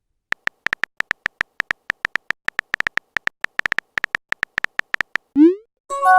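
Smartphone on-screen keyboard clicks: rapid, irregular key taps of a message being typed. Near the end comes a short rising whoosh of a text being sent, then the start of an incoming-message chime.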